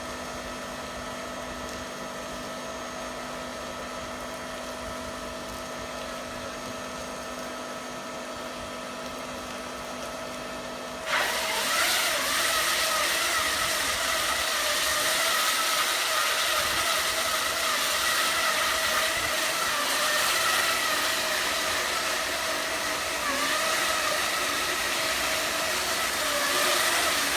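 Hydraulic concrete wire saw and its power pack running with a steady whine. About eleven seconds in, it suddenly gets louder and harsher, and the whine starts to waver.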